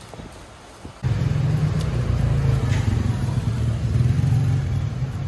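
A motor vehicle engine running close by, cutting in abruptly and loud about a second in as a steady low hum.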